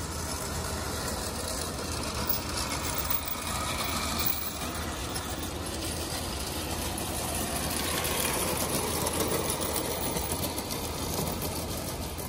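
Garden-scale model train running on an outdoor layout: small electric motor whirring and wheels rattling over the track, with a steady low hum underneath. It swells slightly for a couple of seconds in the second half.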